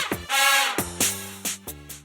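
Short comedic musical sound effect: brassy pitched notes in quick phrases over drum hits whose pitch drops, with a few short hits near the end.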